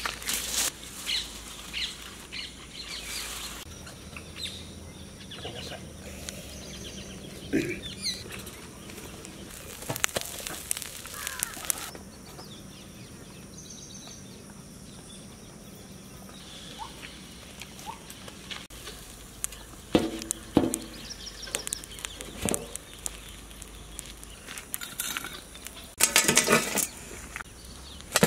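Aluminium foil crinkling and rustling under hands, with scattered knocks and clinks of metal plates and a lid being handled. The sounds come in short bursts with quieter stretches between them.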